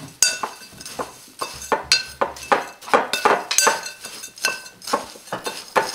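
Metal spoon stirring a dry crumb mixture of graham crackers, coconut and chopped walnuts in a glass mixing bowl, clinking and scraping against the glass in irregular strokes, about three a second, some with a brief ring from the glass.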